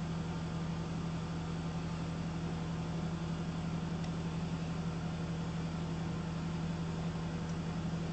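Steady low machine hum with an even hiss underneath, unchanging throughout.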